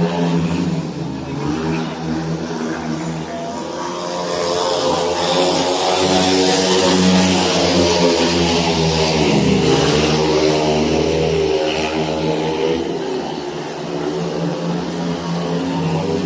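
Speedway motorcycles, 500 cc single-cylinder methanol engines, racing around the track at full throttle. It is loudest through the middle, and about nine seconds in the engine pitch dips and climbs again as a bike is throttled back and opened up through the turn.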